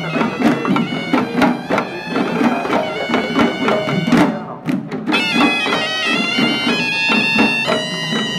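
Sri Lankan hewisi ensemble: a horanewa, a small double-reed shawm, plays a melody over davul and tammattama drums beating a steady rhythm. The horn's melody breaks off briefly a little past halfway, then comes back in.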